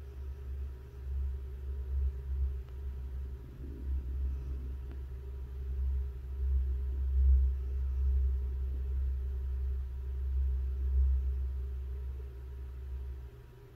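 A low rumble that rises and falls in level and drops away near the end, with no birdsong.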